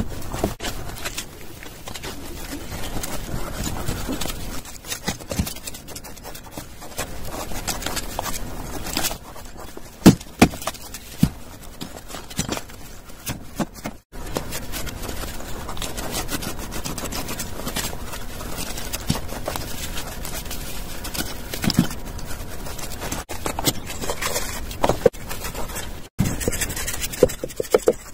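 Wet cement mortar being worked by hand and with a small trowel: scraping, patting and rubbing, with scattered short knocks, the loudest about ten seconds in. The sound cuts out briefly twice.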